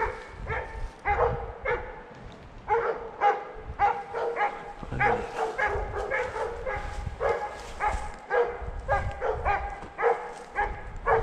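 A dog barking over and over in short, high-pitched yelps, about two a second, without a break.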